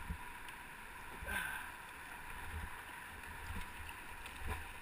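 Rushing water of shallow river rapids around a canoe, with uneven low buffeting on the microphone and a couple of light knocks, one at the start and one near the end.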